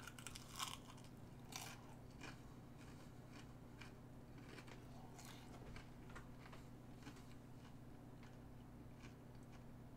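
Faint chewing of breaded plant-based chicken-style nuggets: a few crisp crunches of the breading in the first two seconds, then quieter, sparser chewing, over a low steady hum.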